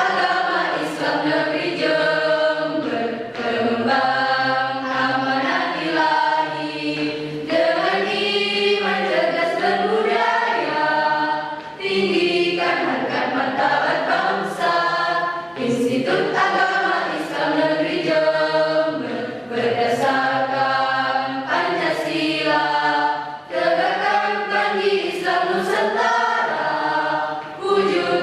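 A choir singing, in phrases with short breaks for breath between them.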